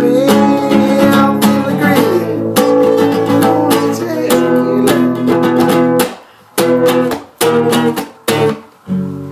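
Acoustic guitar strummed in an instrumental stretch of a song, with two brief stops between chords in the second half.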